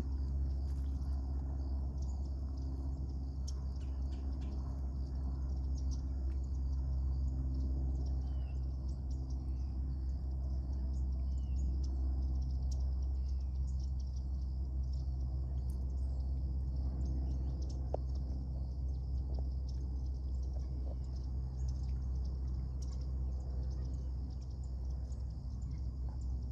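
Outdoor wetland ambience: small birds chirping now and then over a steady high hiss, with a constant low rumble underneath.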